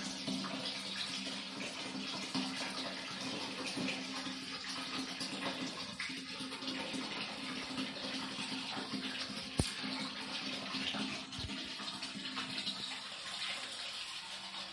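Water from a wall tap running steadily into a plastic bucket. A single sharp knock about ten seconds in.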